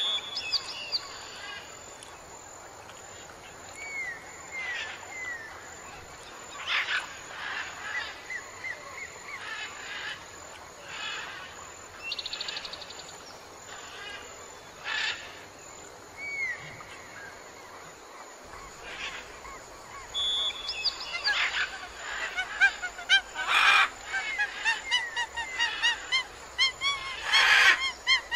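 Outdoor animal ambience. Scattered bird chirps and short falling whistled notes come first; from about two-thirds of the way in, a denser run of louder honking calls takes over.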